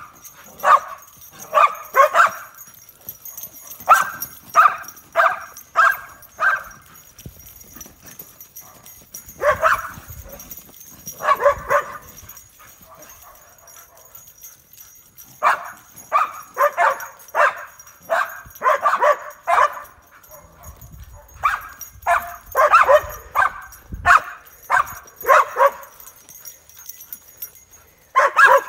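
Dog barking in quick runs of several barks, with pauses of a few seconds between the runs.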